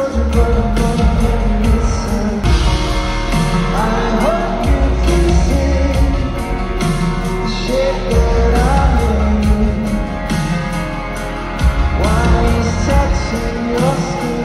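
Live band performing a pop-rock song: lead vocal over drums, bass and guitar, heard through the arena's PA from the audience seats.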